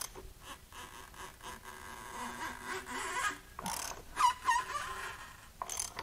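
Nissan SR20DET four-cylinder engine being turned over, giving intermittent scraping and high squeals as it rotates, with a few sharp clicks. The engine has no compression, and this bad-sounding turnover is a sign that something inside it is wrong.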